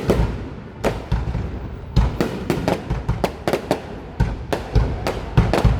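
Aerial fireworks bursting: a rapid, irregular string of sharp bangs, more than a dozen, each followed by a low rumble.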